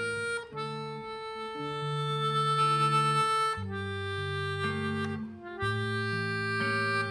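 Slow instrumental music: a melodica holds reedy sustained chords that change every second or two, with saxophone and electric guitar.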